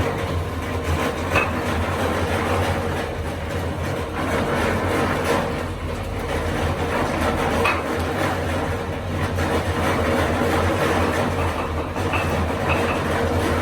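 Steady low mechanical rumble, like a running engine or machine, with scattered clicks and rattles.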